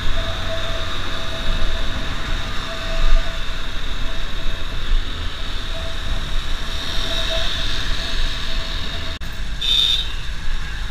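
Motorcycle on the move in traffic: steady wind rush and road noise on the camera microphone over the running engine, with a faint thin whine coming and going. A brief high tone sounds near the end.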